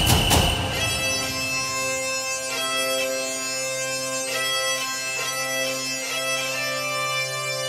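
Music: a drum-heavy beat stops about a second in, then a bagpipe tune plays a changing melody over a steady low drone.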